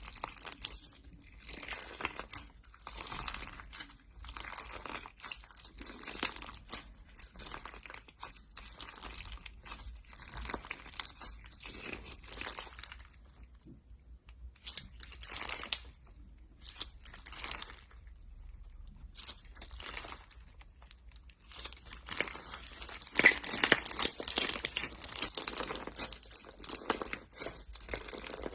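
Slime being squeezed, pressed and pulled by hand, giving many small crackles and pops in irregular bursts with short pauses. The crackling gets denser and louder for the last several seconds.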